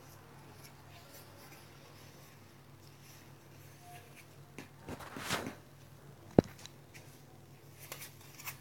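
Handling noise from a man moving about in boxing gloves: a brief rustling swell about five seconds in, then one sharp smack just after six seconds, and a few light clicks near the end, over a faint steady low hum.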